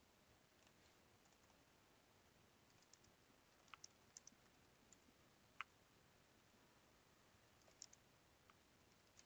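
Faint computer keyboard keystrokes: a dozen scattered single clicks over near-silent room tone, starting about three seconds in.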